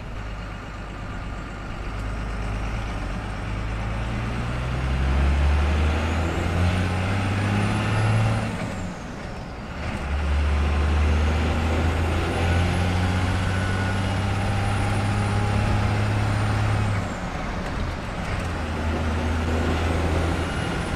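A 12-valve Cummins 5.9 inline-six turbo diesel accelerating through the gears. Its note climbs and drops at gear changes about nine and seventeen seconds in, and a high turbo whistle rises as it spools and falls away at each shift.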